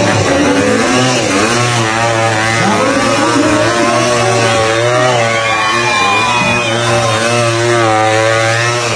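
Dirt-bike motorcycle engines running and revving, the pitch rising and falling again and again over a steady low drone.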